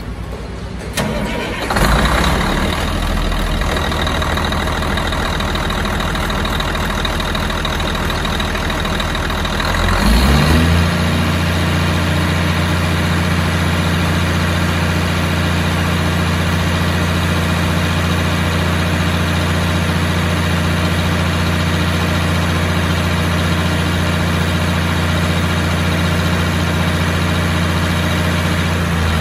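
Cat 345B L excavator's diesel engine running with the engine hood open. About ten seconds in the engine speeds up, and it then holds a steady, higher speed.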